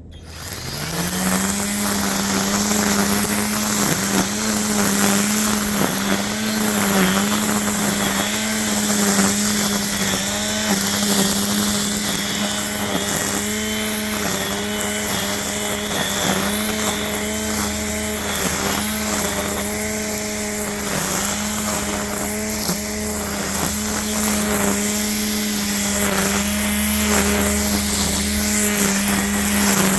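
EGO 56-volt cordless string trimmer (multi-tool power head with trimmer attachment) spinning up at the start, then running at a steady high whine. Its pitch dips briefly every second or two as the line cuts into thick grass.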